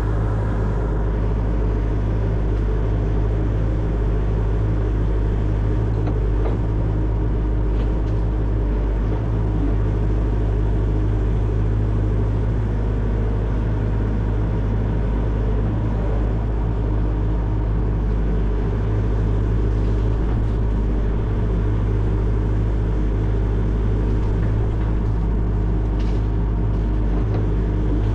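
Excavator's diesel engine running steadily at constant revs, a low, even drone.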